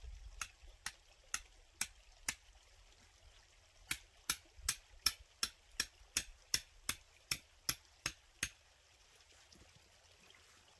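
Two runs of sharp, evenly spaced strikes. There are six about half a second apart, then after a pause of a second and a half about thirteen a little faster, stopping about two seconds before the end.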